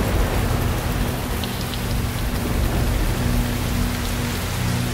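Steady rain falling, an even hiss of drops with a low rumble underneath.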